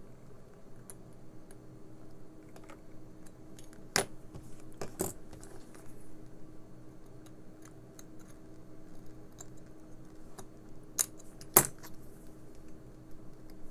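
Small metal tools clicking and tapping against a hearing aid's tiny screw: scattered light ticks, sharper clinks about four and five seconds in, and two louder clicks near the end.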